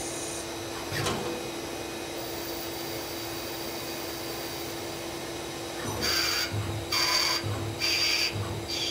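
Citizen Cincom B16E sliding-headstock CNC lathe running, a steady hum with a tone through it and a brief sharp sound about a second in. From about six seconds in, a louder regular pulsing starts, roughly three pulses every two seconds.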